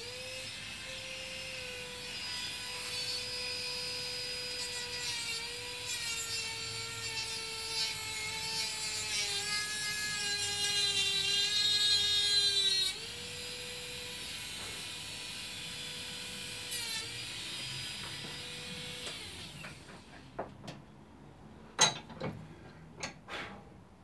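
Small handheld rotary tool with a hard cutting disc, running at high speed as a steady whine while it cuts a fine line into horn. Its pitch sags as the disc bears into the horn for a few seconds midway, then picks up again. It stops about three-quarters of the way through, and a few sharp clicks follow.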